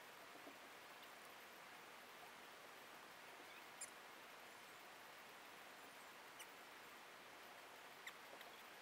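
Near silence: a faint steady hiss of outdoor background, with a few brief faint high ticks, the first about four seconds in and two more later.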